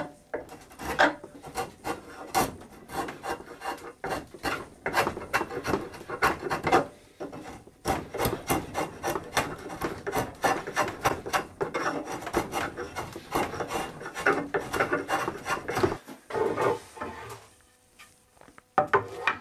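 Draw knife shaving a wooden chair rocker held in a shave horse, roughing the new spline repair to shape: a quick run of short scraping cuts, several a second, with a brief pause about halfway and a longer one near the end.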